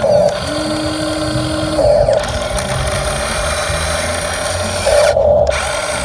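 Small electric motors and gearboxes of a Huina 1550 radio-controlled excavator whirring as it works. The whir comes in short louder surges three times, with a steady hum for about a second near the start.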